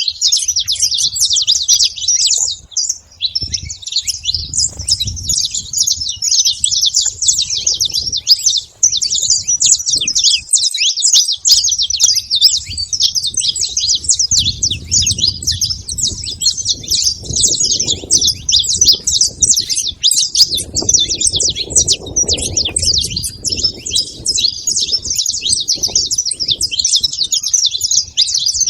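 A flock of saffron finches chirping and singing at once, many short overlapping calls forming a continuous high chatter.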